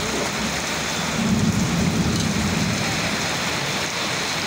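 Heavy rain pouring steadily in a thunderstorm, with a low roll of thunder swelling about a second in and fading by about three seconds in.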